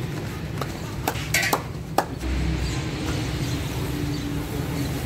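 Dishes and utensils clinking a few times at a meal, with the sharpest clinks about one and a half and two seconds in, over steady background noise.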